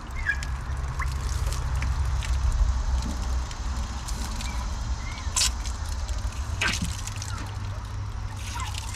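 Tap water running and splashing from an outdoor spigot as plastic syringes and needles are rinsed clean by hand, with two sharp clicks around the middle.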